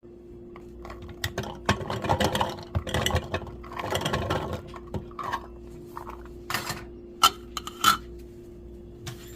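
Kitchen knife chopping garlic on a cutting board: dense runs of rapid knocks, then scattered single knocks, with two sharper, louder knocks later on.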